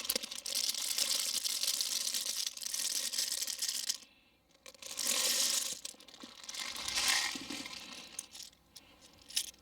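0.25 g plastic airsoft BBs being poured into an opened speed loader: a rattling, rustling pour in spells, the longest at the start, with a short pause about four seconds in.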